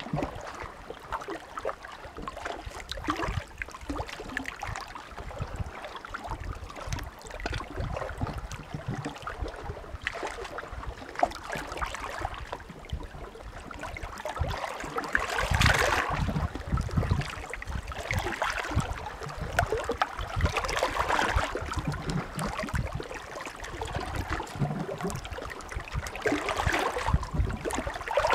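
Small Adriatic sea waves lapping and washing on the shore, with a louder wash swelling in every few seconds, the strongest about halfway through and again near the end.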